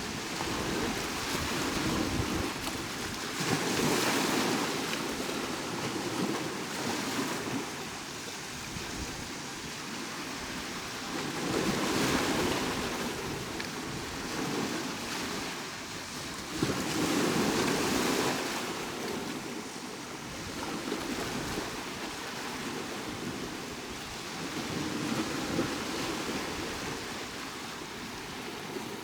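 Sea waves washing onto the shore in a steady hiss that swells into a louder surge every four to eight seconds as each wave breaks.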